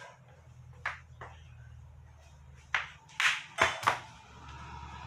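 Flip-flops slapping on a tiled floor as a person steps about: about six sharp slaps at uneven spacing, the last three close together, over a low steady hum.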